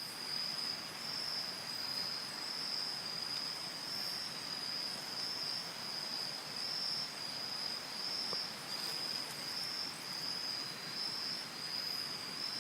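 Insects, likely crickets, trilling in a continuous high, even chorus that swells and fades slightly about once a second.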